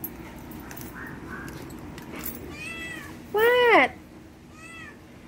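Domestic cat meowing three times: a soft meow, a loud, longer meow about three and a half seconds in, then another soft one.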